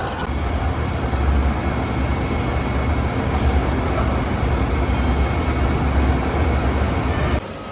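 Heavy industrial machinery running with a loud, steady low rumble and a noisy wash above it, dropping away abruptly near the end.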